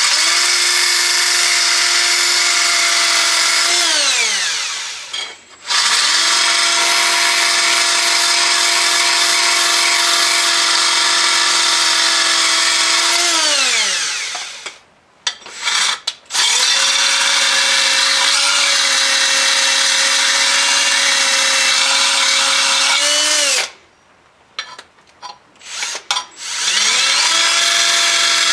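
Electric power tool grinding the cutting edge of a steel lawn mower blade, run in four stretches: each time the motor spins up, holds a steady whine over a grinding hiss, then winds down with falling pitch when the trigger is let go, three times about ten seconds apart.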